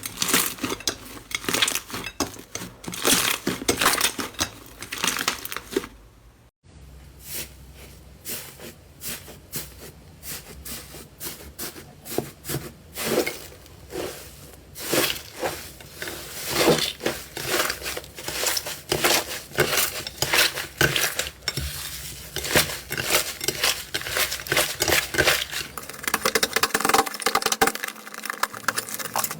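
Slime being squeezed, pressed and poked by hand, giving a dense run of sticky crackles, pops and clicks. The sound breaks off briefly about six and a half seconds in and then carries on.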